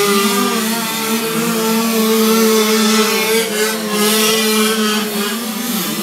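Several motocross bikes' engines held at high revs as the riders take the jump, their overlapping pitches wavering up and down over a steady high-revving drone.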